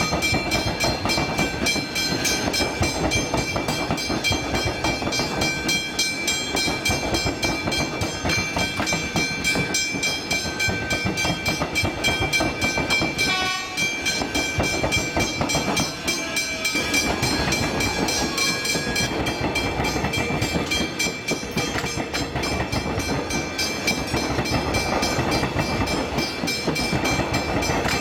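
Electric suburban train rolling through a level crossing, its wheels clattering over the rail joints and the tramway crossing. A steady high ringing, typical of the crossing's warning bell, runs underneath. Short tonal squeals come about halfway through.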